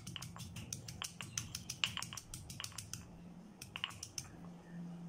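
Green chillies being pounded in a stone mortar with a stone pestle: quick knocks, several a second, for about three seconds, then a few last strikes.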